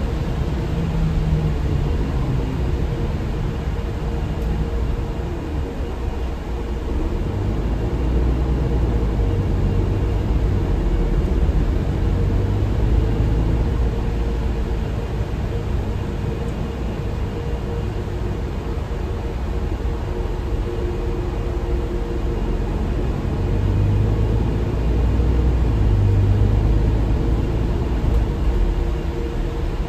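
Cabin noise at the rear of a MAN Lion's Intercity LE 13 bus under way: the engine's low rumble mixed with road noise. It swells louder for a few seconds about three-quarters of the way through.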